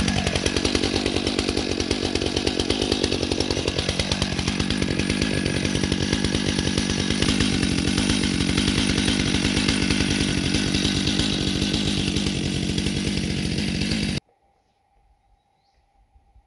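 Stihl MS661 chainsaw's 91 cc two-stroke engine running to warm up. Its speed falls about a second in, climbs again around four seconds in and holds steady, then cuts off suddenly near the end.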